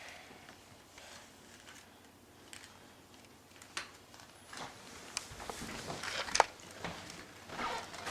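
Handling noise from a child's tools and tool belt: scattered light clicks and taps, with the sharpest tap a little past six seconds in.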